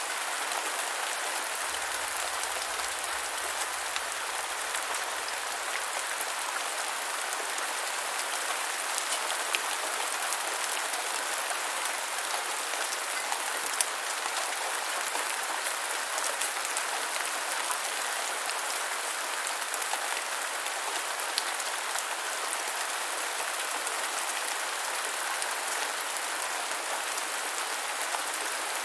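Light rain falling steadily, a constant hiss with scattered individual drops ticking on a surface.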